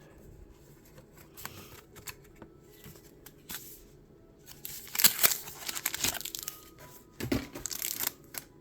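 Pokémon trading card packs and cards being handled: soft shuffling of cards at first, then louder crinkling and crackling of foil pack wrappers and packaging about five seconds in and again near the end.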